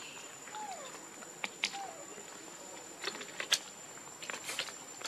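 Outdoor ambience with a steady high insect drone, two short falling calls in the first two seconds, and a few sharp clicks, the loudest about three and a half seconds in.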